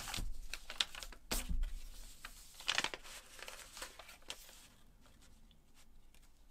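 Sheet of paper crinkling and rustling in several bursts as it is pulled open and smoothed flat by hand, dying away over the last two seconds.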